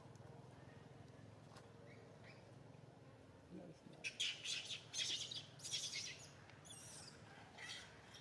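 Birds chirping: a quick, busy run of short high-pitched calls starting about halfway through, over faint background.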